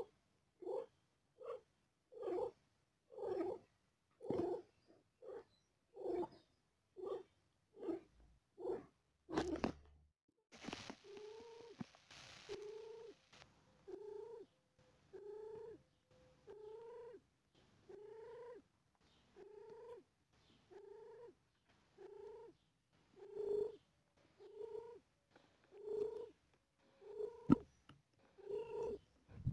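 Mother cat purring while nursing her newborn kittens, in a steady rhythm of short pulses about one a second.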